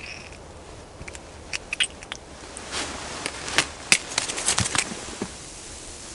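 Scattered sharp clicks and light knocks of ice-fishing gear handled with gloved hands, bunched together through the middle, over the low rustle of clothing. A brief high squeak comes right at the start.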